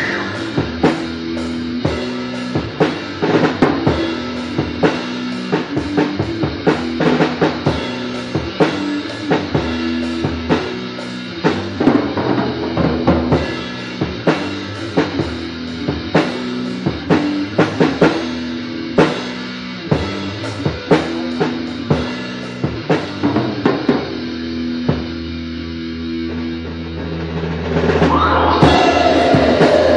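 Band music with a drum kit playing a busy pattern of bass drum and snare hits over sustained guitar and bass chords. Near the end the music swells louder and fuller.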